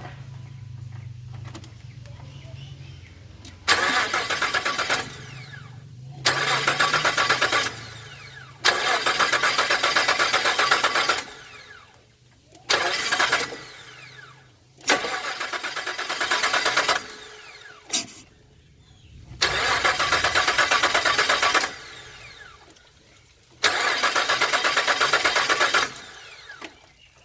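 2001 Nissan Frontier's 3.3-litre V6 being cranked on the starter in seven separate tries of one to two and a half seconds each, plus one very short blip, and never catching. This is the crank-but-no-start fault.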